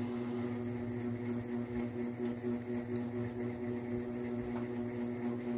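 Steady electrical hum with a faint high-pitched whine above it, and two faint clicks near the middle.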